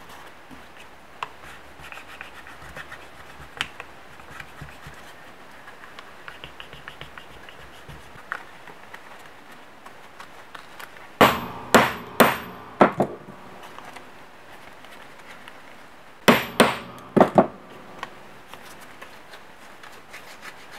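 Handmade gasket paper being cut against a two-stroke cylinder with hammer taps: about five sharp, ringing metallic taps in quick succession near the middle, then four more a few seconds later. Light scraping and paper handling in between.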